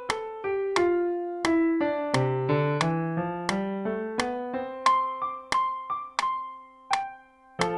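A classical-style melody played on an electric-piano-type keyboard, with a sharp stroke on each beat, about three every two seconds. The notes die away into a short gap near the end, then the tune picks up again.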